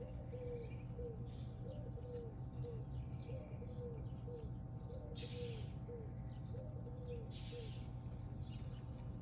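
A dove cooing over and over, short soft coo phrases about every second, over a steady low hum. A few brief hissy rustles come in between, the strongest about five seconds in and again near the end.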